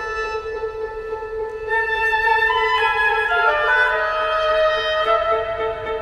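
Contemporary chamber ensemble playing long held notes over a steady drone. New sustained pitches enter about two and three seconds in and stack into a denser chord.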